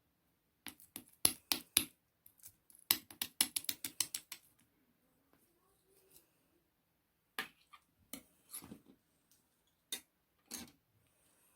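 A quick run of about a dozen sharp clicks and taps of small hard objects. A few scattered taps and short rustles follow.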